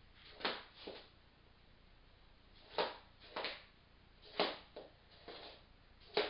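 Adult-size slippers flopping and scuffing on a wooden floor as a toddler shuffles along in them: about eight short, uneven steps, some a second or two apart and some in quick pairs.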